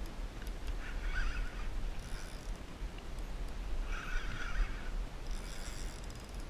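Spinning reel's drag buzzing in short bursts as a hooked false albacore pulls line off against it.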